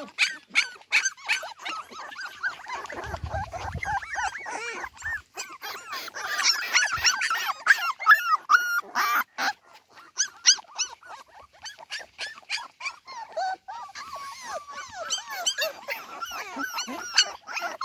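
A litter of Cardigan Welsh Corgi puppies crying together: many overlapping high-pitched whines and whimpers, broken by short sharp yips. They are puppies left alone without their mothers.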